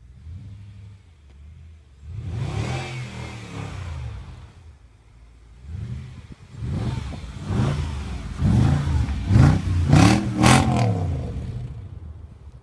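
Mercedes-Benz W211 E500's V8 engine revving hard again and again, its pitch climbing and dropping with each blip of the throttle, the loudest revs near the end.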